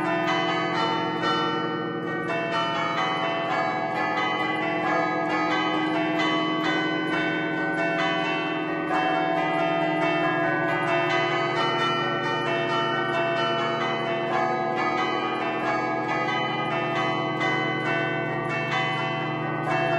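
Ten-bell concerto in A, cast by Barigozzi in 1950, played from a baton keyboard in a traditional Bergamasque allegrezza: quick strikes, several a second, make a lively tune, with the bells ringing on over one another.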